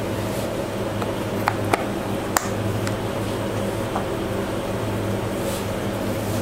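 Steady low hum of a running electric appliance motor, with a few faint light clicks between about one and two and a half seconds in.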